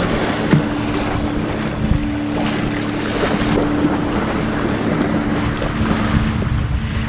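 A sailing yacht motoring under its engine, a steady low hum, with water rushing along the hull and wind buffeting the microphone.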